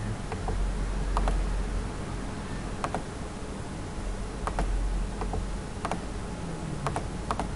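Computer mouse clicking: about a dozen sharp clicks at irregular intervals, several in quick pairs, over a low steady hum.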